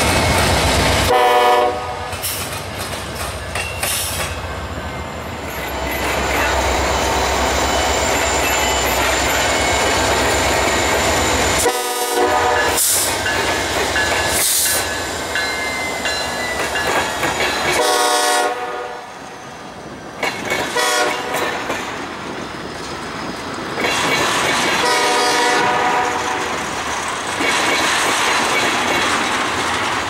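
A Norfolk Southern ethanol tank train passing, led by an SD70M-2 and a GE Dash 9 diesel: engine rumble and wheels clacking over the rail joints, then the tank cars rolling by. A locomotive horn sounds four times, each blast a second or two long, spread through the passage.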